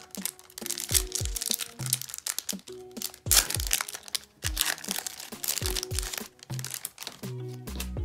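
Green foil wrapper of a 1993 Fleer Ultra baseball card pack crinkling and tearing in short bursts as it is ripped open by hand, over steady background music.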